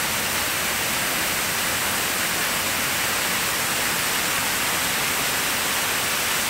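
Waterfall pouring over a rock face into a pool, heard close by as a steady, even rush of falling water.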